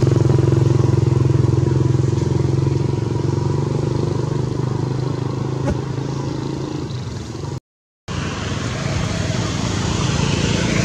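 A motor vehicle engine running steadily, a low hum. It cuts off for about half a second roughly three-quarters of the way through, then comes back with more hiss.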